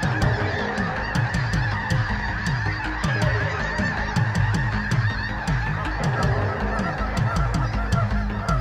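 A large flock of migrating geese honking continuously overhead, many calls overlapping into a dense chorus. Under it runs an electronic music track with a regularly repeating low bass figure and light, evenly spaced ticks.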